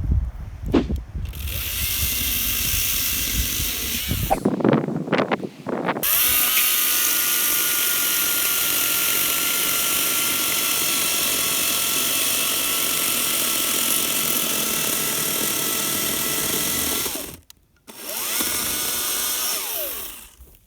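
Battery-powered WEN 40V electric chainsaw running with a steady high motor-and-chain whine for about ten seconds, after shorter bursts with a few low knocks between them. It stops abruptly, then spins up briefly once more and winds down near the end.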